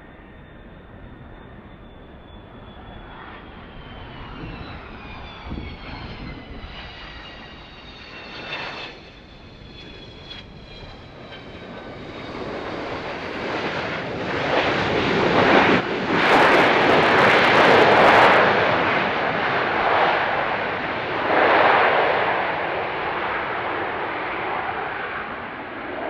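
A Boeing 727-223's three hushkitted Pratt & Whitney JT8D-15 turbofans on the landing roll after touchdown. First a high whine falls in pitch, then a broad jet roar builds, is loudest about two-thirds of the way in, and eases off toward the end.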